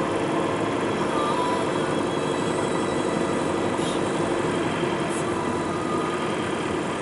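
Car on the move, heard from inside the cabin: steady engine and road noise.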